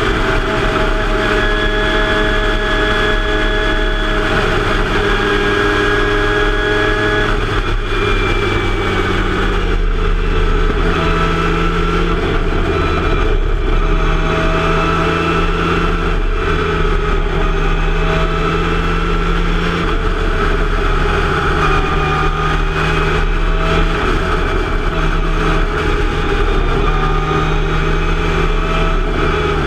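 Formula Mazda race car's rotary engine running hard at speed, heard from the cockpit, its note rising and falling with throttle and gear changes, with a marked change in pitch about eight to ten seconds in. Wind rush sits under the engine throughout.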